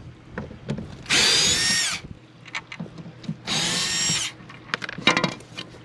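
Power drill-driver backing out screws: two runs of about a second each, the motor's whine dropping in pitch as the trigger is released, followed by a few sharp clicks.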